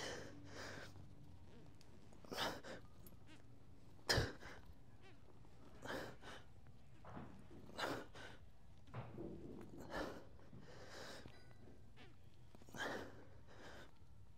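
A man's sharp, forceful exhales during a set of incline dumbbell presses, one short breath about every two seconds, roughly one with each press.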